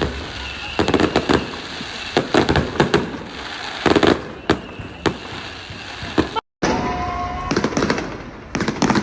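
Fireworks bursting: many sharp bangs and crackles, some single and some in quick clusters, over a steady background rumble. The sound cuts out completely for a moment about six and a half seconds in, then more bangs follow.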